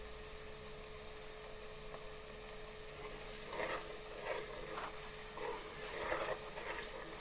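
Onions frying with a faint sizzle in an aluminium pressure cooker. From about halfway, a steel ladle stirs and scrapes the pot in short strokes roughly every half-second.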